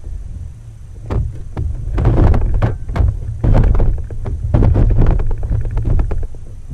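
Wind buffeting an action camera's microphone on an open kayak: a heavy, steady rumble with irregular knocks and thumps throughout.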